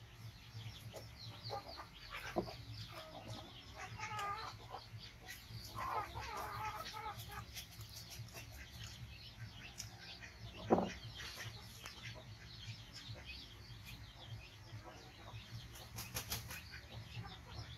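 Scattered bird chirps and clucks over a low steady hum, with small clicks and one sharp knock about eleven seconds in.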